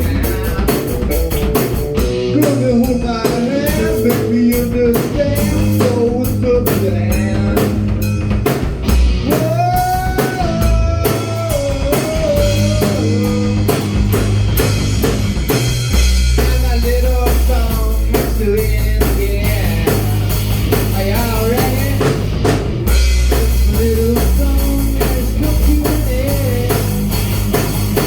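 Rock music played on drum kit, guitar and bass, with a melody line that slides between notes over steady drum strikes.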